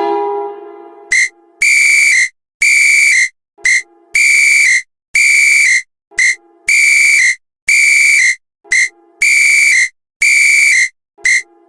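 A high whistle blown in a repeating pattern of one short blast and two long ones, the group coming about every two and a half seconds. Before it starts, a falling tone fades out during the first second.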